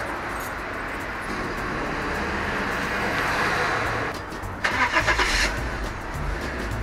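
A steady rushing noise for about four seconds, then a car engine is cranked and catches about five seconds in, settling into a low idle rumble.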